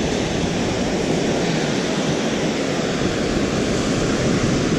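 Steady rush of ocean surf breaking on a beach.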